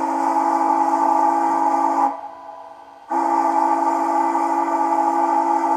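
Steam locomotive chime whistle from a TCS WOW sound decoder, played through the model's speaker: two long steady blasts, about a second apart.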